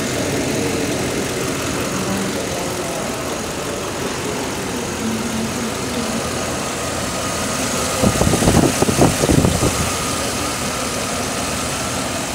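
6.0-litre L96 Vortec V8 engine in a 2011 Chevrolet Silverado idling steadily. About eight seconds in there is a burst of louder, uneven thumping that lasts a second or two.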